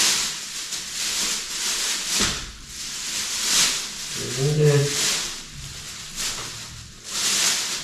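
Thin plastic bag around an electric guitar crinkling and rustling in a run of bursts as it is handled and pulled off by hand.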